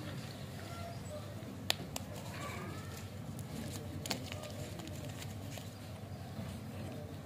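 Wrapper of a Joker 2 chew lollipop being handled by fingers, crinkling, with a few sharp clicks, the loudest about two seconds in.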